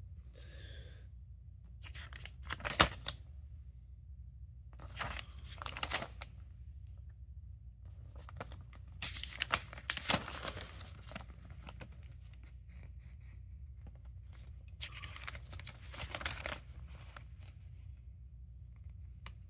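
Glossy paper inserts and a booklet being handled and leafed through: several bursts of paper rustling and crinkling, with one sharp snap a few seconds in.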